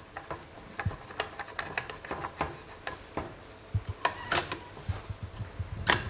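Handling clicks, taps and scrapes from an unplugged Metabo 9-inch angle grinder as its side handle is moved over to the other side of the gear head for left-handed use. The taps are scattered and irregular, with a sharper knock near the end.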